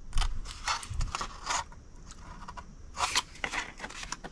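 Scissors cutting through cardstock: a quick run of short snips, a brief pause, then more snips about three seconds in.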